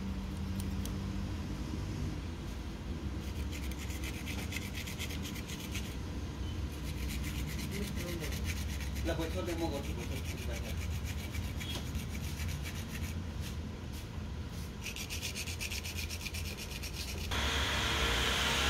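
Repeated rubbing and scraping strokes, as of hand abrasive work on a part, over a steady low hum. Near the end a louder rushing noise sets in.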